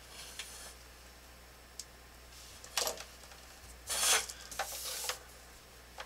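Plastic drafting tools rubbing and sliding over paper on a drafting table as a scale ruler is moved aside and a triangle is slid into place. There are a few short scrapes, the loudest about four seconds in, and a small click near the end.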